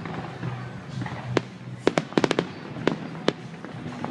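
Fireworks shells bursting, heard as sharp separate bangs with a quick run of several cracks a little past two seconds in.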